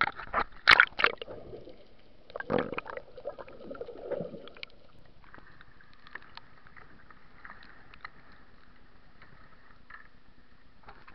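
Sea water splashing and gurgling against a waterproof camera at the surface beside a boat hull, in loud irregular bursts over the first four or five seconds, then a faint steady hiss.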